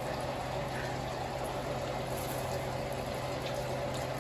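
A steady low hum with an even hiss over it, unchanging, with no distinct events.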